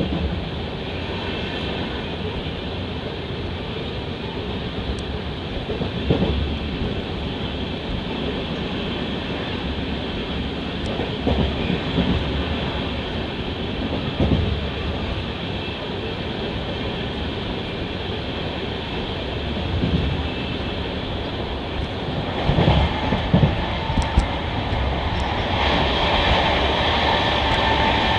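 A passenger train running along the track, heard on board: a steady rumble of wheels on rail with occasional clunks over joints, growing louder over the last few seconds.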